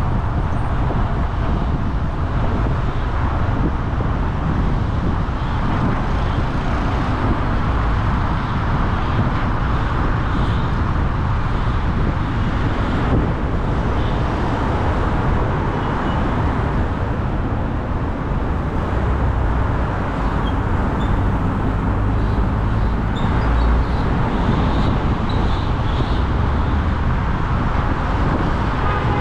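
Steady road and traffic noise from a car driving through city streets, tyre and engine noise with other vehicles around.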